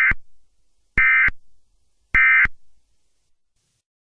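Emergency Alert System end-of-message code: three short bursts of harsh, buzzing SAME digital data tones, about a second apart. They signal that the alert broadcast is over.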